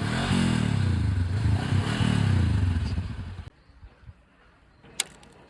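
Honda twin-cylinder motorcycle engine revved repeatedly, the pitch rising and falling about once a second, then cut off abruptly about three and a half seconds in. A single sharp click follows near the end.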